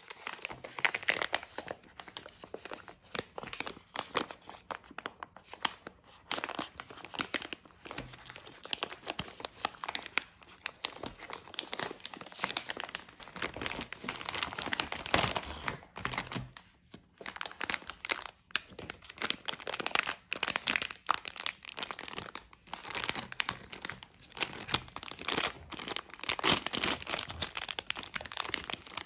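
Plastic snack packaging crinkling and rustling in irregular bursts as hands open a printed plastic bag and handle the clear cellophane wrappers of individual candied-fruit sticks inside.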